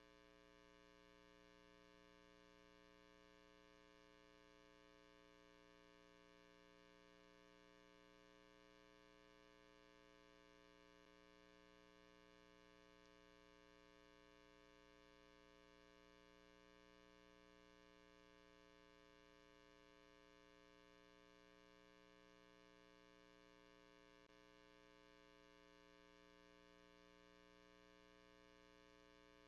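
Near silence: only a faint, steady electrical hum with many overtones.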